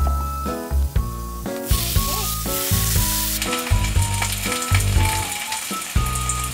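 A crowded frying pan of marinated beef bulgogi and onions sizzling in its juices as it is stirred with chopsticks, the sizzle starting about two seconds in. Light background music plays throughout.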